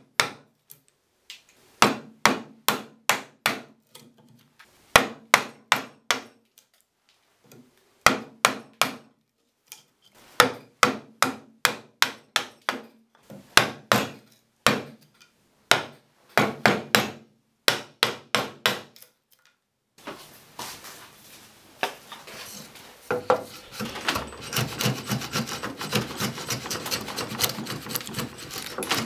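Chisel being struck into pine across the grain, in quick runs of sharp knocks with short pauses, chopping out a trench. About two-thirds of the way through this gives way to a continuous rapid scraping, as a blade set in a wooden block is worked back and forth across the trench floor to pare it level.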